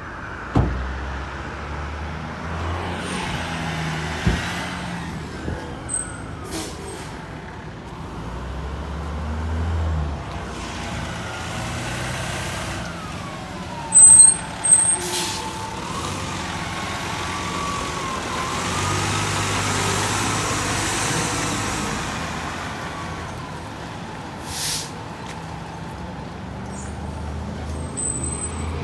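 Fire engines running with a low engine rumble, punctuated by sharp air-brake hisses, the loudest one about halfway through. A faint wavering siren tone sounds through the middle.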